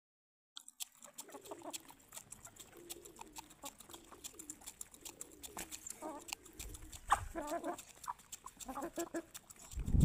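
Asil rooster pecking seed grain from a hand, a quick, irregular run of sharp little clicks, with soft low clucking calls that grow louder past the middle.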